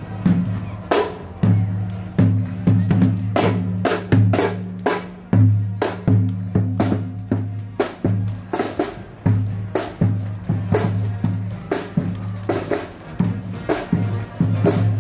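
Marching band playing: sharp snare and bass drum hits, about two to three a second, over held low notes.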